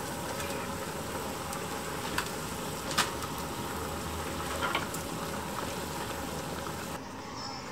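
Pot of water at a rolling boil, bubbling steadily, with a few light clicks and knocks, the sharpest about three seconds in, as bok choy is dropped in to blanch and pushed under with tongs.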